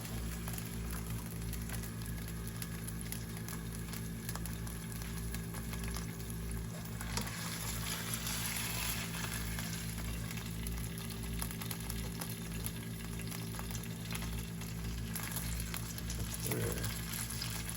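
Hot cooking oil sizzling in a frying pan, with a steady, fine crackle.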